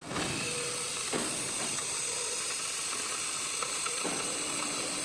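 Steady high hiss of a gantry CNC machine's cutting torch working steel plate.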